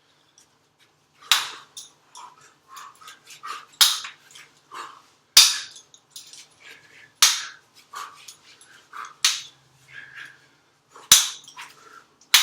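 Sharp cracks of strikes on a hanging wooden jump rope handle used as a target. The hardest hits come about every two seconds, with lighter taps and clacks between them.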